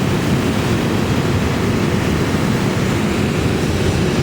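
Hot air balloon propane burner firing in one long, steady blast.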